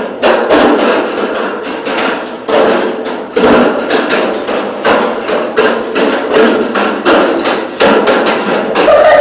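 A child making loud, repeated banging: sharp knocks, irregular and often several a second, each with a short ring.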